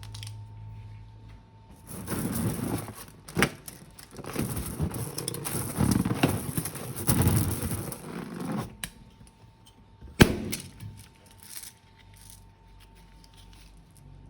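Handling sounds of slime being made: a run of dense, noisy squelching and rustling from about 2 to 9 seconds in, with a sharp click about 3 seconds in and a louder one about 10 seconds in.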